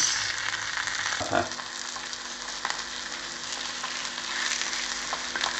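Egg and sausage paniyaram balls frying in oil in a paniyaram pan, a steady sizzle, with a few light clicks as the balls are turned in their cups.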